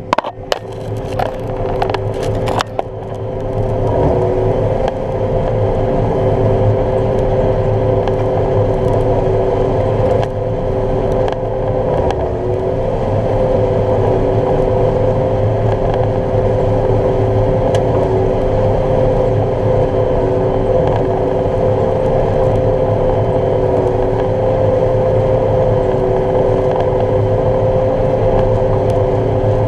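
Combine harvester running steadily while cutting soybeans: a steady machine hum with two whining tones over a low rumble. It builds up over the first few seconds, with a few sharp clicks at the start.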